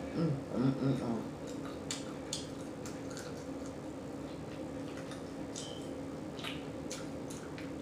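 Close-miked mouth sounds of a person eating: wet chewing and lip-smacking clicks, scattered through, with a brief hummed vocal sound about the first second. A steady low hum runs underneath.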